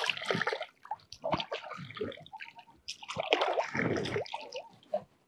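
Pond water splashing and dripping as it is scooped up in cupped hands and poured over a forearm, falling back into the pond, in two main bursts, one at the start and one about three seconds in, with small drips between: washing the arms in wudu ablution.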